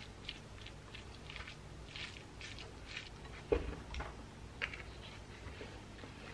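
Wooden spoon and chopsticks stirring a namul bibimbap of rice, bean sprouts and seasoned vegetables in a ceramic bowl: short soft scrapes and light clicks. A dull thump comes about halfway through, followed by quiet chewing.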